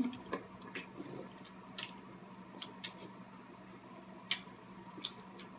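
Quiet eating sounds from king crab legs: scattered small clicks and squishes of shell and crab meat being handled, and chewing, over a faint steady hum.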